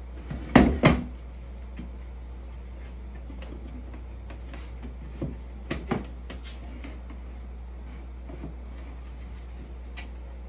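Knocks and clunks from the panels of a slatted box being handled and fitted together: two loud knocks about half a second in, a few more around five to six seconds in, and a faint tick near the end, over a steady low hum.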